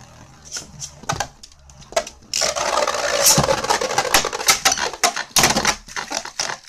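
Two Beyblade Burst spinning tops, Rock Dragon D5 and Ogre O5, battling in a plastic stadium: a few sharp clicks at first, then from about two seconds in a dense whirring scrape studded with rapid sharp clacks as the tops collide and grind against each other and the stadium walls.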